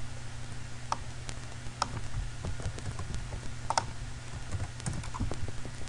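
Irregular clicks of a computer keyboard and mouse, a handful of separate keystrokes and clicks, over a steady low electrical hum.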